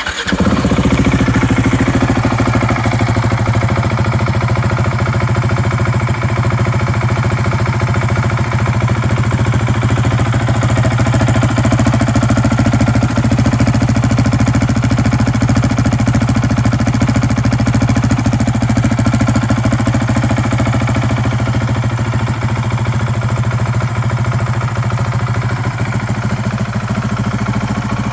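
KTM 690 SMC R's single-cylinder engine breathing through an Arrow aluminium slip-on muffler with carbon-fibre end cap. It comes in abruptly as it starts and then idles steadily with an even thumping pulse, with no popping or backfiring.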